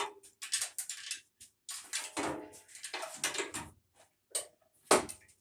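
Irregular knocks, clicks and short scrapes of wood and tools being handled on a workbench, with a sharp knock near the start and another near the end.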